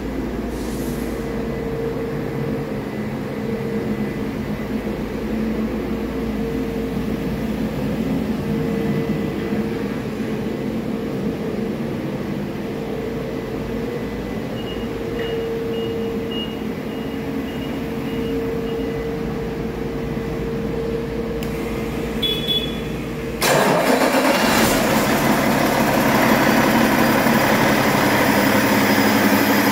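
Cummins X15 15-litre inline-six diesel engine running on a test stand, idling steadily. About two-thirds of the way through the sound suddenly becomes louder and fuller and stays that way.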